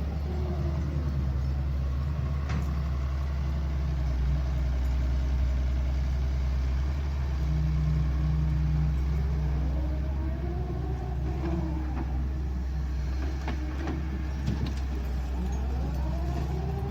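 Excavator's diesel engine running steadily under load, with a whine that rises and falls a couple of times and a few short knocks from the digging and loading.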